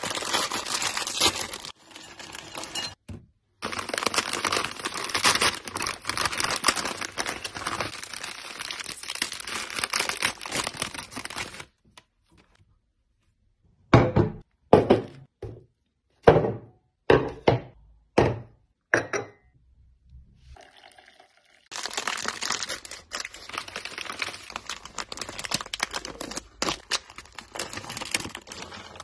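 Plastic snack wrappers crinkling and rustling as they are handled and torn open. After a short gap comes a run of about eight separate sharp crunches from corn puff snacks, and then more wrapper crinkling.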